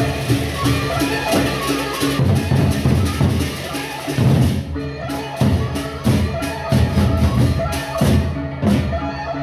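Gendang beleq ensemble playing: the large double-headed gendang beleq drums are beaten in fast, dense strokes over steady ringing tones, with a brief break in the drumming about halfway through.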